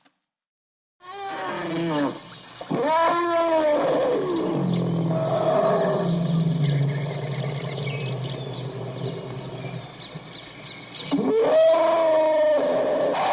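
Elephants calling: after a second of silence, loud calls that rise and fall in pitch, then a lower drawn-out call, and another rising and falling call near the end.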